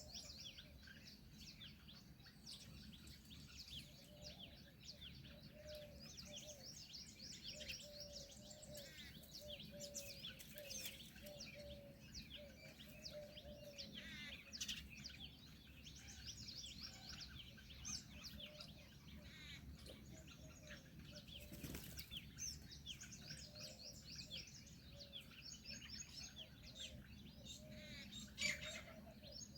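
Faint chorus of many small birds chirping and twittering, with a lower call repeated over and over beneath it.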